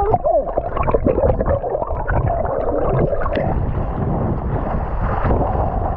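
Muffled underwater rumble and gurgling of shallow seawater moving around a camera held just below the surface, with a few short rising-and-falling tones in the first second. From about halfway through, it turns into a steadier hiss of wind and choppy water as the camera comes up at the surface.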